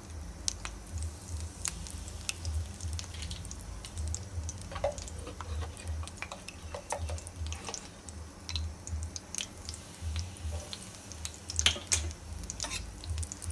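Dried curry leaves crackling in warm ghee in a kadhai, with irregular small pops and clicks throughout, as a steel spatula stirs them.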